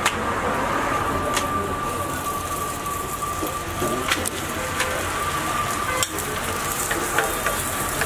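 Rotis sizzling on a large flat iron griddle, with scattered sharp taps as a spatula lays down and turns them. A thin steady tone sounds in the background and stops near the end.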